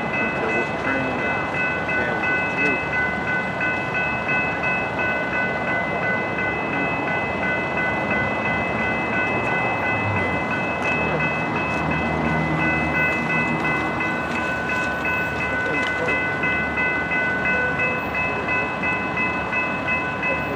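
Railroad grade crossing bell ringing steadily with a fast, even ring, over a constant rushing noise. A low hum comes in about halfway through and fades a few seconds later.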